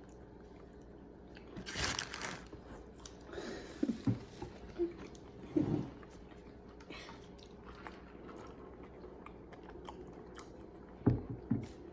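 Chewing and biting into a crispy fried chicken sandwich, close up, in short irregular crunches. The longest crunch comes about two seconds in, and there is another pair near the end.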